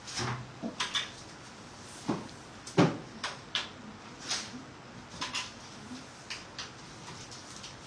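Irregular clinks and knocks of metal spoons against metal trays on a stainless steel work table as filling is scooped, about a dozen short hits, the loudest about three seconds in.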